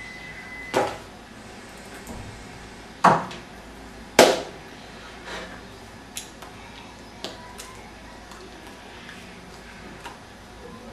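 Handling noise: a few sharp knocks and clicks, the three loudest in the first half, then lighter ticks.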